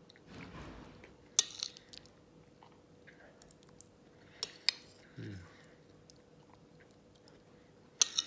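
Fork clinking and scraping against a plate a few times, with quiet chewing in between. There is a brief low vocal sound about five seconds in.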